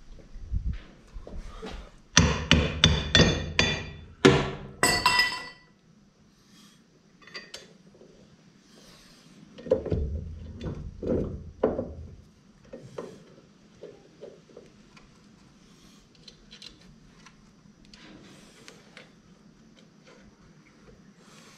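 A hammer striking metal in a quick run of ringing blows for about three seconds, then a few duller knocks around ten seconds in, then light clinks of tools.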